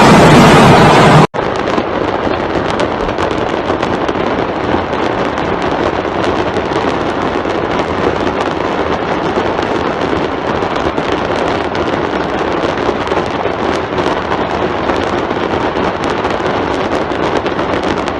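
Fireworks stock going off in a burning fireworks factory: a dense, continuous crackle of many small bangs and pops at a steady level. A much louder stretch cuts off abruptly a little over a second in.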